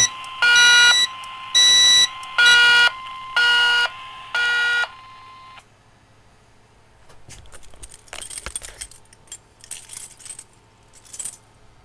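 Fire alarm horns sounding in an even pulse, about one blast a second over a steady tone, cutting off about five seconds in as the alarm panel is reset. After that, keys jangling and clicking at the panel.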